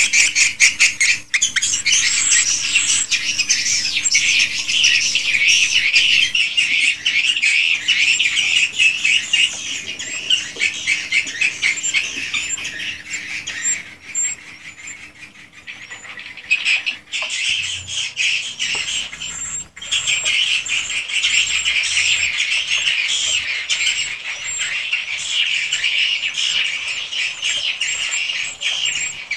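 Many swiftlets chirping and twittering inside a swiftlet house, a dense, rapid chatter that thins out for a few seconds around the middle and then picks up again.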